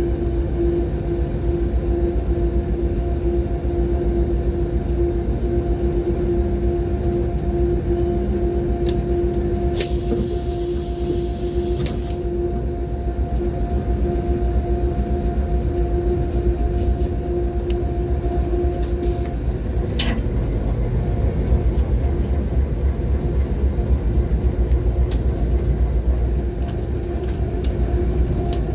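A train running along the track with a steady heavy rumble and a constant humming tone that stops about two-thirds of the way through. A brief high-pitched screech comes about ten seconds in.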